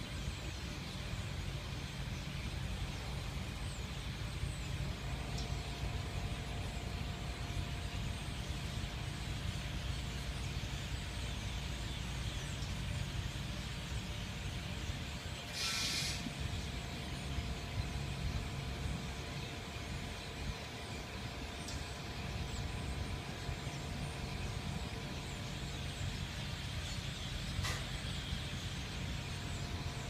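Steady road and engine noise of a moving car, heard from inside, with a short, loud hiss about halfway through.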